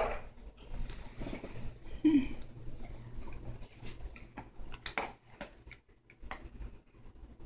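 Dogs at play: scattered light clicks and knocks, with one short squeak about two seconds in.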